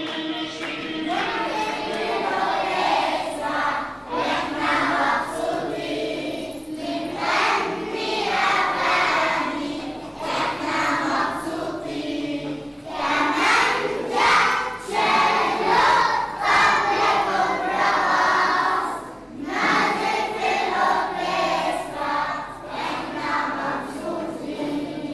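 A group of children singing together in chorus, in phrases with short pauses between them.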